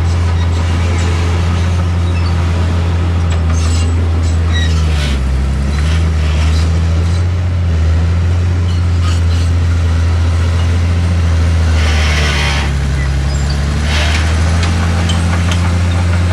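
Heavy diesel engine of earthmoving machinery running steadily, its pitch dipping briefly a couple of times, with scattered clanks and rattles and a short hiss about twelve seconds in.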